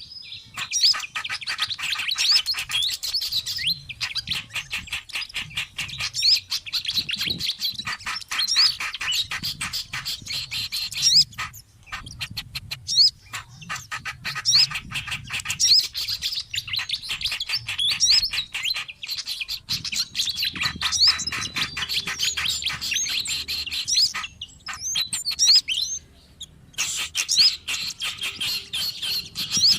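Lure recording of several small songbirds calling together: dense, rapid chirps and quick whistled glides with only brief pauses, made to draw wild birds in.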